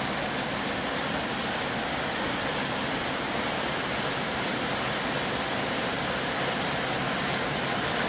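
Heavy rain falling steadily on a corrugated metal roof, an even hiss with no letup.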